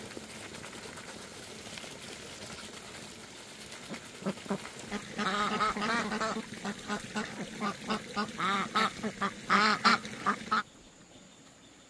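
Ducks quacking: a run of many short calls over about six seconds, cutting off suddenly near the end.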